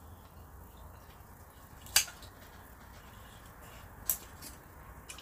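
Kitchen scissors and metal tongs cutting and handling braised pork ribs in a metal pan: a few sharp clicks, the loudest about two seconds in and two smaller ones about four seconds in.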